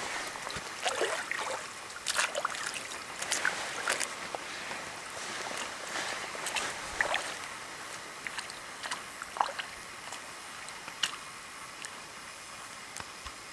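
Lake water lapping and splashing in short, irregular bursts over a steady hiss.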